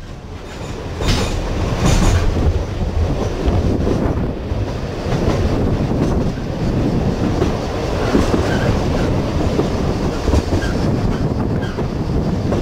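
Sóller narrow-gauge electric railway car running on the rails: a steady rumble that grows louder over the first two seconds, with wheel clacks about one and two seconds in.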